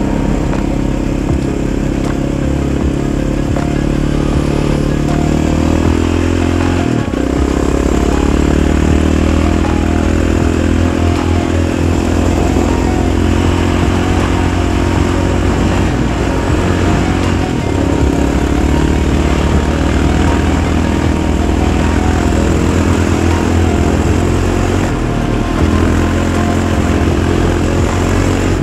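Yamaha Raptor 700 ATV's single-cylinder four-stroke engine running under way, its pitch rising and falling with the throttle and gear changes.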